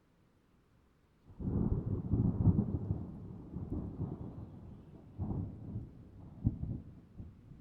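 Near silence, then a little over a second in a rumble of thunder breaks in and rolls on in several swells, loudest just after it starts, with another sharp peak near the end.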